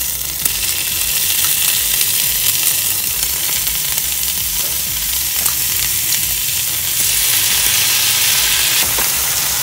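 Cooked ground sausage sizzling in a hot nonstick skillet as pasta sauce is stirred into it with a plastic spoon: a steady high hiss with a few faint scrapes of the spoon.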